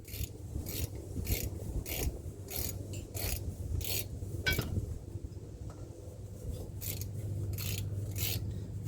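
Hand ratchet wrench being worked on a bolt in repeated back-and-forth strokes, each return stroke a short burst of clicking, about one and a half strokes a second, with a short pause past the middle.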